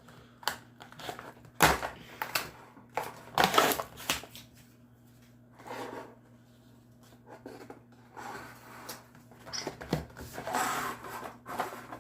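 A Pringles can being handled and opened: scattered clicks and knocks, with short tearing, crinkling rustles of the seal.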